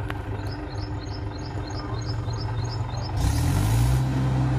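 Mahindra XP 475 tractor's four-cylinder diesel engine running steadily, then throttled up about three seconds in, its pitch rising and holding higher and louder as it works to pull its loaded trolley out of the mud.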